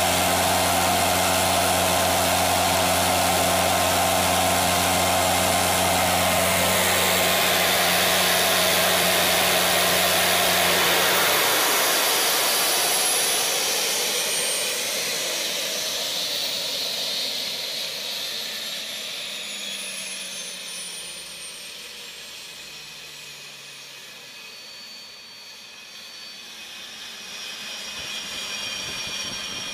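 Williams WR27 APU gas turbine running at governed speed with a loud steady hum from its stalled load compressor, the bleed closed off. About eleven seconds in the hum cuts out, and the turbine's whine falls steadily in pitch and fades as the engine winds down.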